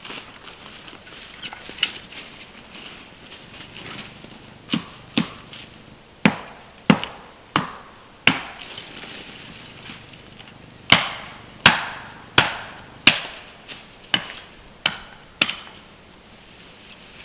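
An axe chopping wood: a run of sharp blows, then a short pause and a second run, each blow a little under a second after the last. Soft rustling of footsteps on forest litter comes before the chopping.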